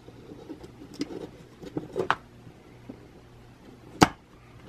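Small scrapes and taps of a soldering iron and solder wick working on the metal terminals of a Morse key while old solder is wicked off a joint, with one sharp click about four seconds in. A faint steady low hum sits underneath.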